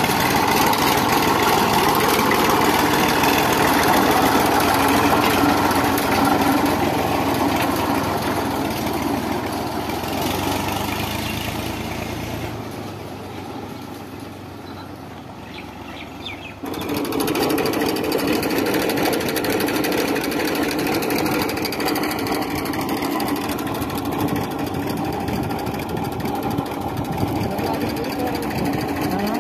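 Massey Ferguson tractor's diesel engine running steadily. It fades down over a few seconds about ten seconds in, then comes back suddenly at full level and keeps running.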